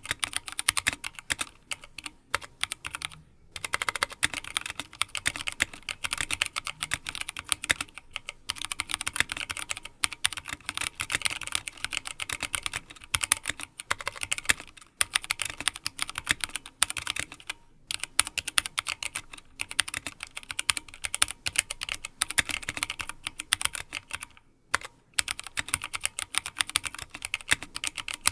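Fast, continuous typing on a Drop ALT High-Profile mechanical keyboard with Kailh Speed Silver linear switches and stock doubleshot PBT keycaps. The keystrokes come in quick runs broken by a few short pauses.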